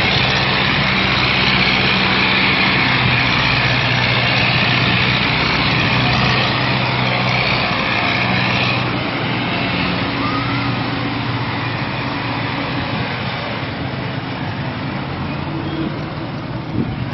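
Farm tractor diesel engines running hard while one tractor pulls another: a steady, loud engine drone that eases and grows fainter after about nine seconds.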